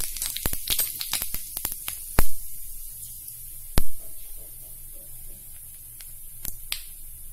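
Cumin seeds sizzling in hot oil in a pan: a steady hiss with sharp crackling pops as the seeds splutter. Two louder pops come about two and four seconds in, and the popping thins out toward the end.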